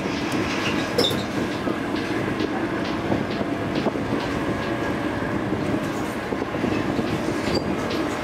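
Fast ferry's engines running with a steady, rattling rumble, with scattered light clicks.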